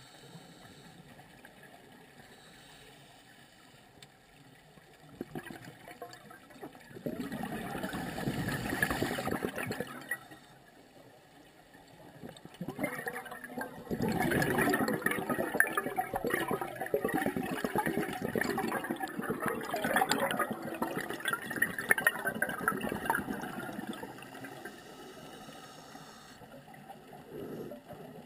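A scuba diver's exhaled air bubbling out of the regulator, heard underwater. There are two loud bursts of bubbling: a short one about seven seconds in and a longer one from about thirteen to twenty-four seconds. Between them the sound drops back to a low hiss.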